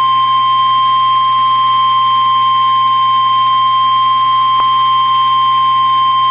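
NOAA Weather Radio warning alarm tone: one steady, high-pitched tone held unbroken, with a faint hiss of the radio broadcast beneath. It is the attention signal that a warning announcement, here a severe thunderstorm warning, follows.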